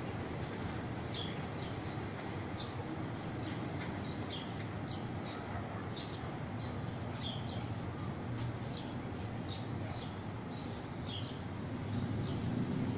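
A bird calling over and over, short high notes that each fall in pitch, roughly one or two a second, over a steady background rumble that grows slightly louder near the end.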